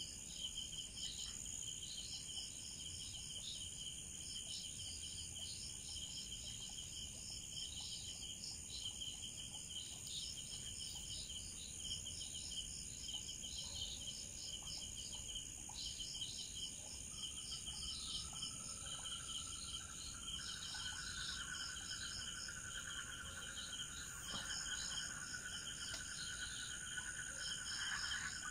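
Night insect chorus of crickets and other insects: steady high-pitched ringing, with rapid pulsed chirping trills over it. About two-thirds of the way in, a lower-pitched trill joins and grows louder toward the end.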